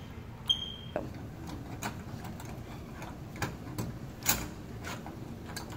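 Deadbolt lock parts being handled and fitted into a door: a series of irregular metal clicks and knocks, one with a brief metallic ping about half a second in, the loudest a little past the middle.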